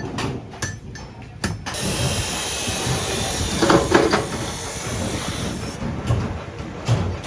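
Workshop power tool running with a steady hiss for about four seconds, framed by short knocks at the start and near the end.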